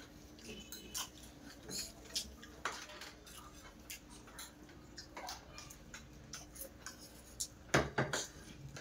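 Forks and spoons clinking and scraping on ceramic plates and small bowls while eating, as scattered light clicks. There is a louder knock near the end, and a faint steady hum underneath.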